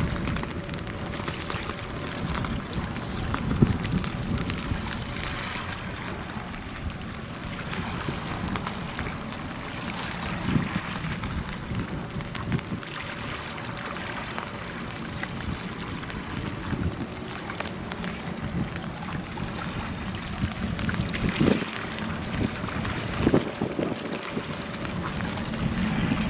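Gas-turbine jetfoil Rainbow Jet running foilborne at speed, heard as a steady rush with a faint steady high tone. Gusts of wind buffet the microphone.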